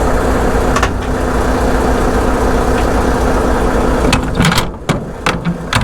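Semi-truck diesel engine idling steadily. About four seconds in the engine sound drops back and a few sharp clicks and knocks follow.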